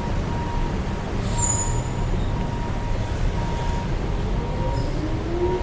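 City street traffic: a steady rumble of passing vehicles, with a brief high squeal about a second in and a rising whine near the end.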